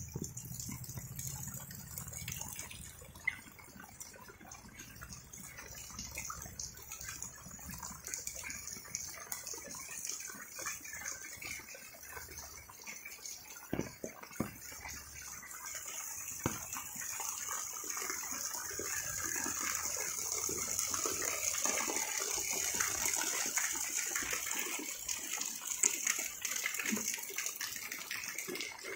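Steady rain falling, a dense hiss that grows louder through the second half, with a few sharp drips or splashes.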